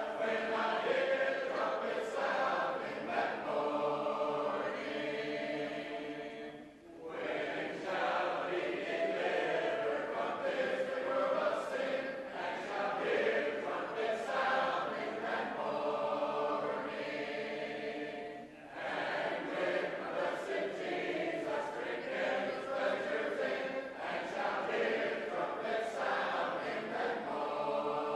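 A large group of shape-note singers singing unaccompanied in full harmony. The sound breaks off briefly twice, about 7 and 18 seconds in, between phrases.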